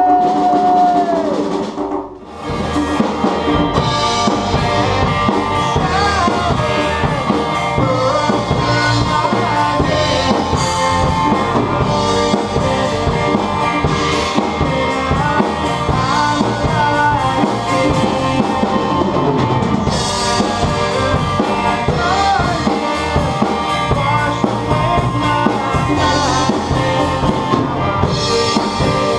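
A small live band with a drum kit plays a song. A held note rings out and fades about two seconds in, then the full band comes in, with drums keeping a steady beat.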